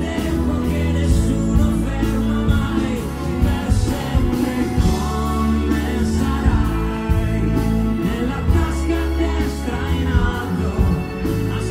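Live pop-rock band playing through the PA, with a male lead singer, drums and bass guitar.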